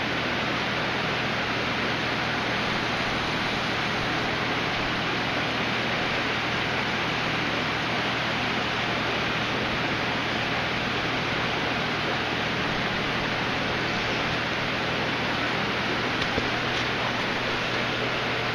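Aquarium filtration running: a steady rush of falling and bubbling water with a constant low pump hum underneath.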